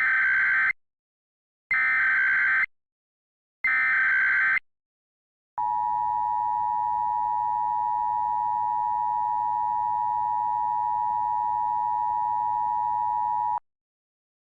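Emergency Alert System alert opening: three one-second bursts of SAME digital header data, each a rapid warbling screech, then the steady two-tone EAS attention signal held for about eight seconds before it cuts off.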